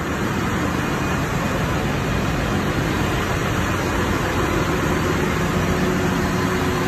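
Steady, loud machinery noise of a ship's engine room: running engines and auxiliary machinery making a constant din, with a faint steady hum joining about four and a half seconds in.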